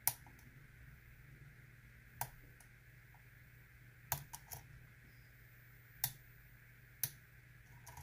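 Sharp light metallic clicks from a Lockwood pin-tumbler cylinder being picked under heavy tension, the pick and spring-loaded pins clicking about seven times at irregular intervals, three of them close together about four seconds in.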